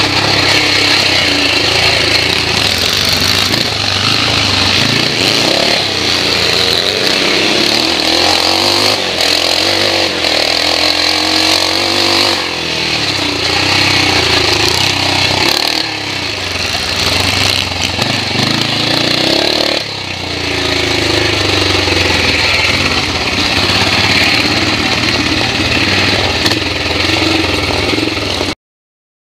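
441 BSA Metisse scrambler's single-cylinder four-stroke engine under hard riding, revving up and easing off with the throttle and gear changes, dipping briefly a couple of times. The sound cuts off suddenly near the end.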